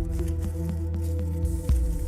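Background music with sustained low notes, with scattered sharp clicks and one louder click near the end.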